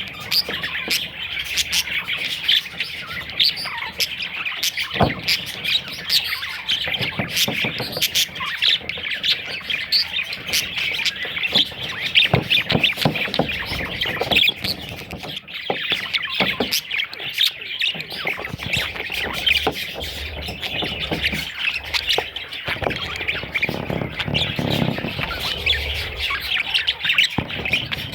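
Budgerigars chattering and squawking without a break, a dense stream of quick high calls and chirps.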